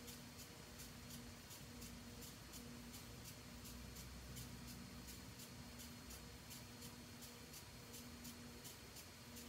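Faint steady hum of an electric potter's wheel spinning, with a light ticking about two or three times a second.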